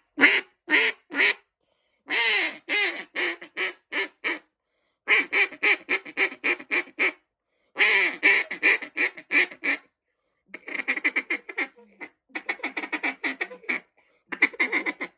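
Duck Commander Shadow duck call blown in several runs of quacks, from a few spaced single quacks to longer strings and fast, choppy chatter near the end. The reed is damaged, so the call sounds off and high-pitched.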